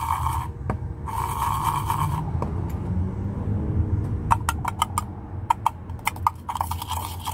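Metal spoon scraping through dry white powder in a small tin can. In the second half it clinks sharply against the tin wall, about three or four times a second. A low steady hum runs underneath.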